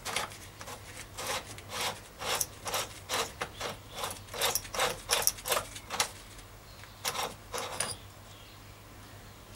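The internal unit of a Sturmey-Archer AW three-speed hub being unscrewed by hand from its steel hub shell, its threads still dirty with old grease. A run of short gritty scrapes, about three a second, breaks off briefly and ends with a few more strokes about two seconds before the end.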